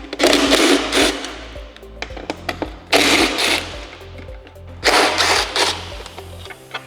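Cordless power driver spinning T25 Torx bolts out of a motorcycle fairing speaker pod in three short bursts, each about half a second to a second long. Background music plays throughout.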